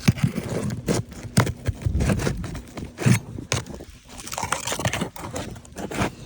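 Scraping and repeated sharp clicks and knocks of a tool working under brittle roof shingles, prying to break the shingle seal and reach a nail head.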